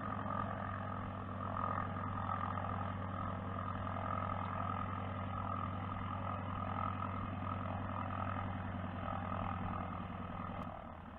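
An engine idling steadily with a low, even hum that cuts off shortly before the end, under rustling and knocking from the body-worn camera being handled on its strap.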